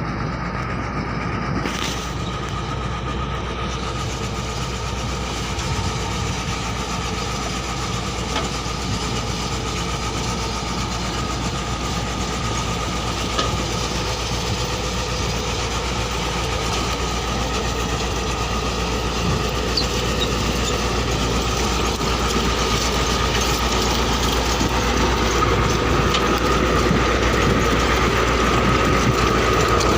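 Heavy diesel construction machinery running steadily: a low engine drone with a steady high whine over it, slowly getting louder.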